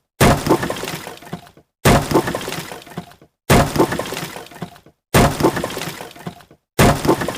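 Wood breaking: a sharp crack followed by a crackling, splintering tail that dies away over about a second. The same sound repeats five times, about every second and a half.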